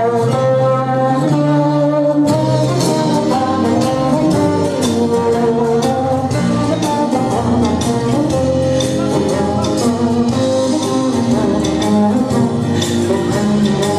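Loud instrumental dance music with held melody notes over a steady percussive beat.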